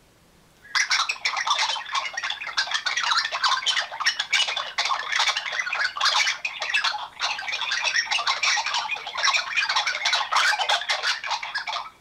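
Unexplained noise on a mobile phone call: a dense, rapid chattering and clicking with no low end. It starts about a second in and runs on until near the end.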